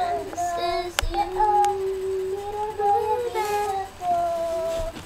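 A young girl singing on her own in a high child's voice, holding long notes as she sings along to music playing in her headphones. A sharp click about a second in.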